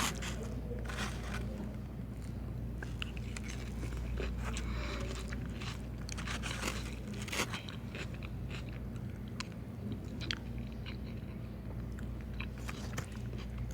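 Close-miked chewing and biting of food, with crunchy bites and many small mouth clicks throughout.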